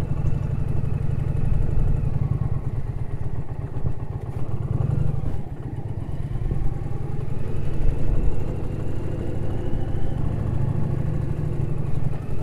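Indian Challenger's V-twin engine running steadily as the motorcycle rides slowly over a narrow metal-grated footbridge and onto a grassy trail.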